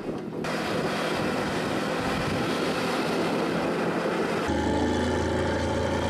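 Engine of a six-wheeled off-road trial truck running under load as it climbs a steep dirt slope. About four and a half seconds in, the sound changes to a steadier, lower engine drone.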